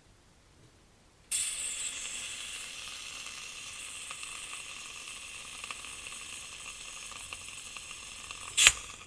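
Compressed butane hissing steadily from a refill can's nozzle into the fill valve of an empty Zippo butane lighter insert. The hiss starts suddenly about a second in, lasts about seven seconds, and ends with a short sharp sound near the end.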